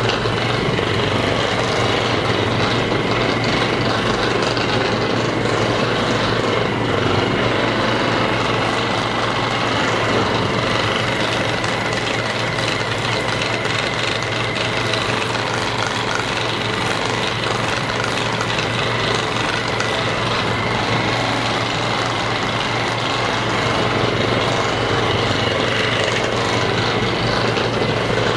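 Percussion massage gun running steadily: a loud, even mechanical buzz with a low hum.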